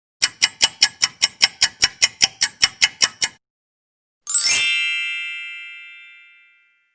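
Chime sound effect: a quick, even run of about sixteen bright ticking chimes, about five a second. After a short gap comes a shimmering chime sweep that rings on and fades away over about two seconds.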